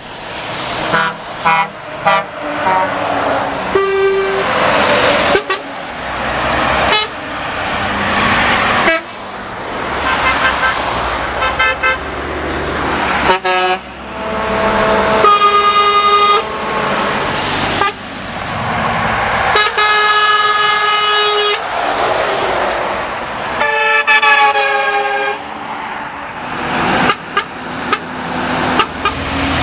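Passing trucks sounding their horns, short toots and several long horn blasts of one to two seconds each, over the rush of diesel engines and tyres. Each sound breaks off abruptly into the next.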